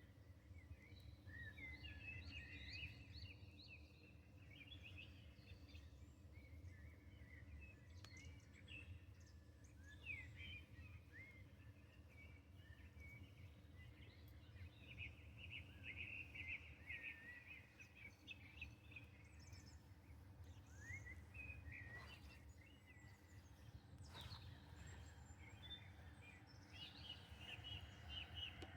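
Songbirds singing faintly, in many short chirping phrases, over a low steady outdoor rumble, with a few faint clicks.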